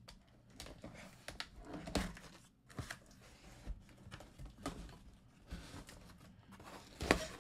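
A cardboard shipping box being pulled open by hand: the cardboard rustles, scrapes and tears, with scattered sharp crackles and one louder rip near the end.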